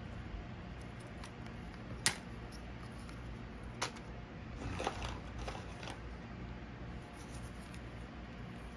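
Cardboard game standees in clear plastic bases handled and set down on a pile of bagged pieces: two sharp plastic clicks about two and four seconds in, then a short run of light clatter and plastic-bag rustling, over a low steady hum.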